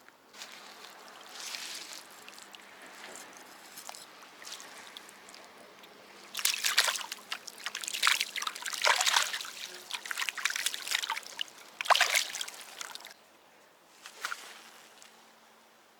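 Water splashing and trickling in irregular bursts, loudest and busiest from about six to thirteen seconds in.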